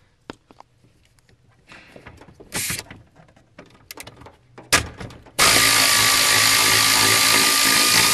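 Pneumatic air ratchet backing out the two bolts that hold the steering column up under the dash of a 1976 Ford Bronco. A short burst about two and a half seconds in and scattered clicks of the tool on the bolts, then a long steady run with a high whine from about five and a half seconds in.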